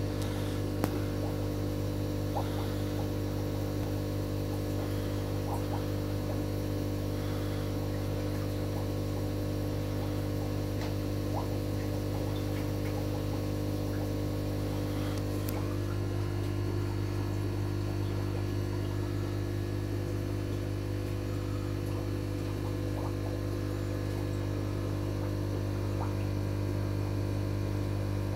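Steady electrical mains hum from aquarium equipment: a strong low hum with several fainter steady tones above it, and a few faint scattered ticks.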